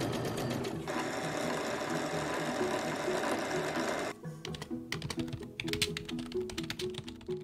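An Emerald 116 domestic sewing machine runs steadily, stitching, and stops about four seconds in. Then come the light irregular clicks of typing on a computer keyboard. Background music plays throughout.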